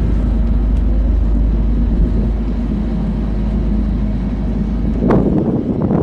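Steady low rumble of a boat under way, with wind blowing on the microphone, and two short louder surges near the end.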